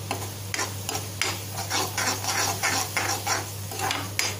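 Steel spatula scraping and stirring thick masala gravy around a kadai, about three or four quick strokes a second, as the just-added dried fenugreek leaves are mixed into the frying masala.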